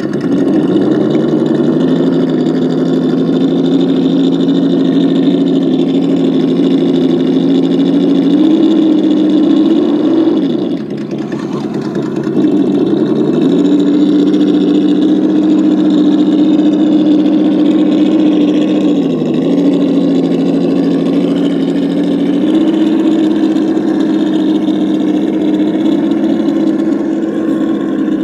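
Electronic V8 engine sound from an RC crawler's ESS-One sound module, played through its speaker and following the throttle: it idles, steps up in revs and drops back several times, falling briefly to idle about eleven seconds in.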